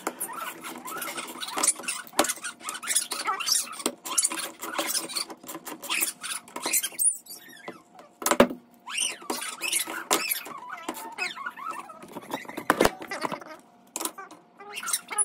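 Irregular knocks, scrapes and short squeaks as a metal TV wall-mount bracket is handled and held against a wall.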